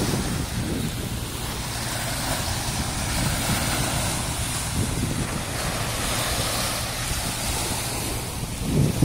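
Wind noise on the microphone over gentle surf washing onto a sandy beach; the wind gusts louder near the end.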